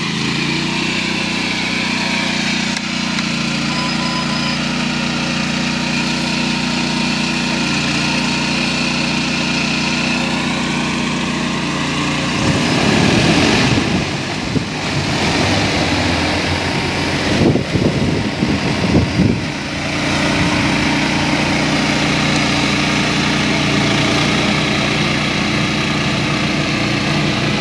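Large multi-rotor agricultural drone running with a steady, even hum from its rotors. From about twelve to twenty seconds in, heavy gusting rotor wash buffets the microphone as the drone lifts off close to it.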